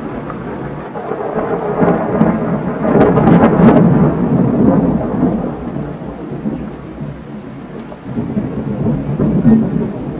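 Thunder rumbling, building to its loudest about three to four seconds in and then dying away, with a smaller swell near the end, over steady rain.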